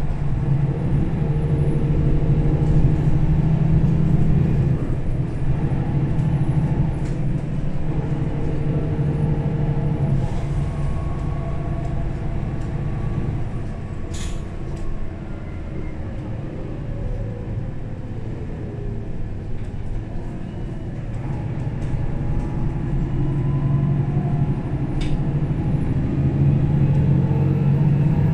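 Inside a 2009 Mercedes-Benz O530 Citaro Facelift city bus on the move: the diesel engine is loud under load for the first several seconds, eases off through the middle and builds up again near the end. A single sharp click about 14 seconds in.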